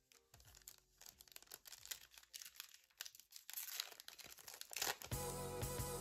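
Foil trading-card pack wrapper crinkling and tearing as it is picked up and ripped open, in quick, irregular rustles. Background music comes in loudly about five seconds in.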